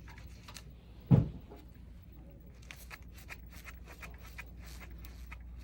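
Small clicks and taps from hands working wires and spade connectors onto a central vacuum PC board, with one louder low knock about a second in.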